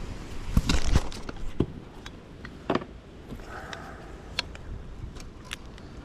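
Scattered knocks, clicks and rattles, with a cluster about a second in and a few single clicks after: a just-landed spotted bass and fishing tackle being handled in a kayak.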